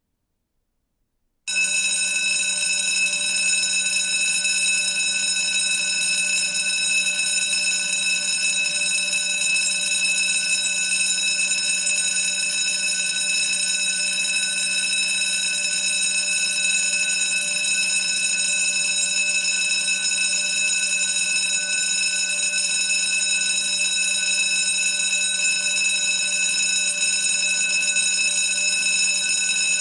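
School bell ringing continuously, starting suddenly about a second and a half in and holding steady without a break.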